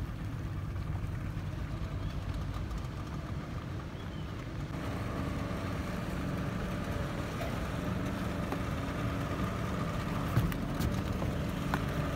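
Boat engine running steadily, heard from on board a speedboat; the hum gets fuller about five seconds in. A couple of sharp knocks near the end.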